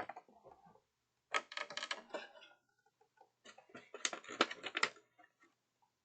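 Game components being rummaged through in a box: two bursts of clattering and rustling, each about a second long, with fainter handling noises between them.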